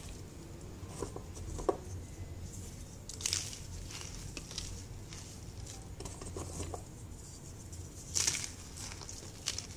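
Gym chalk reforms and loose chalk powder crunching and crumbling as hands squeeze and crush them, with soft crackles throughout. A louder crunch comes about three seconds in and another about eight seconds in.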